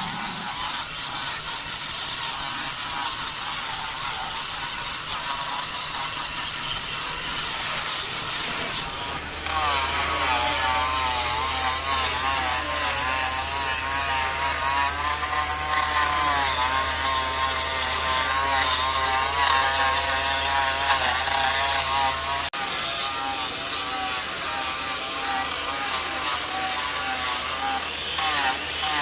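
Power saw running and cutting wood, its pitch wavering up and down. The sound changes abruptly about nine seconds in, and a steady low hum joins it from there.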